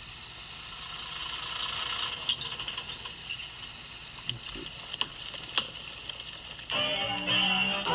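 Steady night-time insect chorus of crickets, with a few sharp pops about five seconds in. Acoustic guitar music starts near the end.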